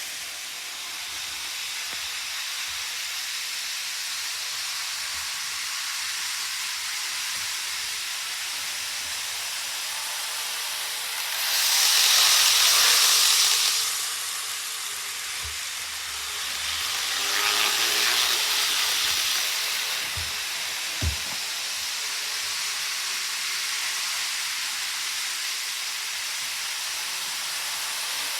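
Model trains running on the layout track, a steady rushing hiss that swells louder twice, about twelve seconds in and again around eighteen seconds, as trains pass close by. A short knock comes near twenty-one seconds.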